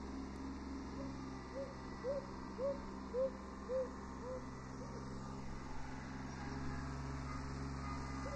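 Kubota B7100 HST compact tractor's diesel engine running steadily at a distance. A run of short, evenly spaced chirps, about two a second, comes in over it from about a second and a half to four seconds in.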